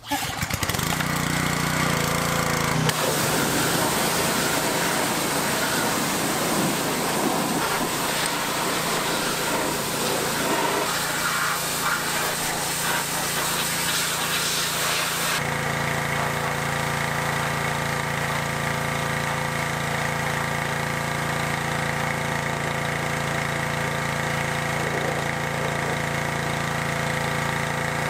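Pressure washer running, its motor giving a steady hum, with the hiss of the water spray for about the first half; the spray then stops suddenly while the machine keeps running.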